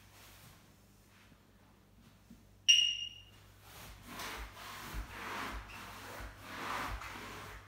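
A single short high-pitched beep that rings away within about half a second, then footsteps walking on a wood-effect floor, about two steps a second, with a rustling rub of handling noise over them.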